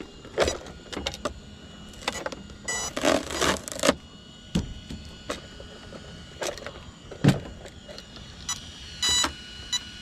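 Hands handling an RC car's plastic body on its chassis while lifting it off: scattered clicks and knocks, with a short rasping scrape about three seconds in and a brief squeak near the end.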